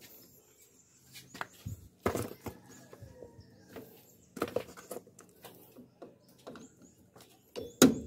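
Scattered sharp metallic clicks and clinks of pliers working on drum brake shoe springs and hardware, with the loudest knocks about two seconds in, around four and a half seconds and near the end.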